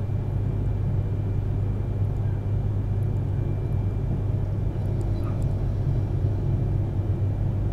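Yamagata Shinkansen Tsubasa train running at speed, heard inside the passenger cabin: a steady low drone with a constant haze of running noise.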